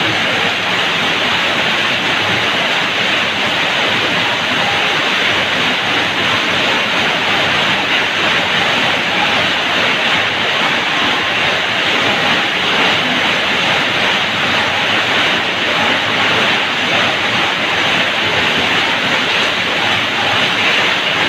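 Rain falling steadily on a tiled roof: a dense, even hiss of drops that keeps up without a break.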